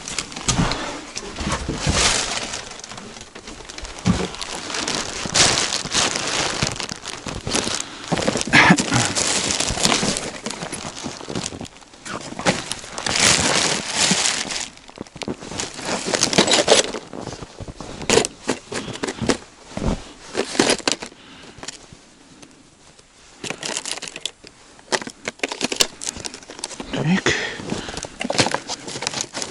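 Plastic bag crinkling and rustling as it is handled and packed, in uneven spells with a quieter stretch about two-thirds of the way through.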